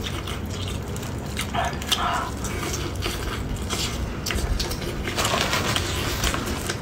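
Close-miked chewing and mouth sounds as chewy, red-glazed meat is eaten, with irregular wet smacks and small clicks.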